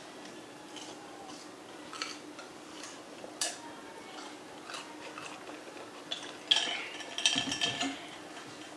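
Close-miked eating sounds: soft chewing and small mouth clicks from eating crinkle fries. About six and a half seconds in comes a louder cluster of clinks and clatter as a glass is set down on the table among the dishes.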